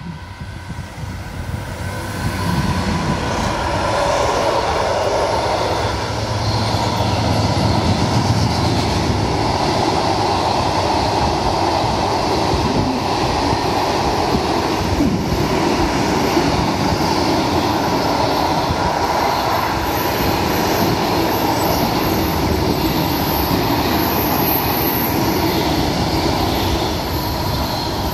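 Long freight train passing close by behind an electric locomotive, its loaded timber wagons and sliding-wall vans rumbling over the rails. It grows louder over the first few seconds as the train draws near, then holds steady as the wagons roll past.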